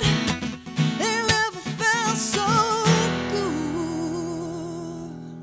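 A woman sings with vibrato over a strummed Taylor acoustic guitar. About three seconds in, a final strummed chord rings out under a long held sung note, and both slowly fade away.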